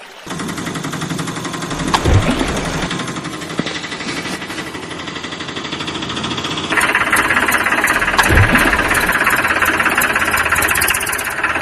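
Tractor engine sound running steadily with a rapid knocking rattle, turning louder and brighter about seven seconds in, with a couple of brief thumps along the way.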